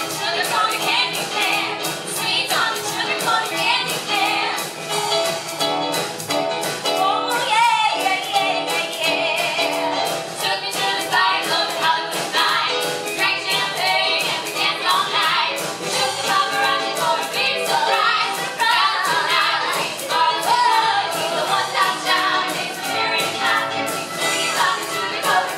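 A group of female vocalists singing a pop song in close harmony, backed by a live band with drums keeping a steady beat.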